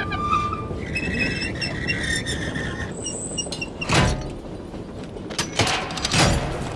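Railway switch points being thrown by a hand lever: the steel switch rail slides over with a high metallic squeal, followed by several heavy metal clanks about four and six seconds in.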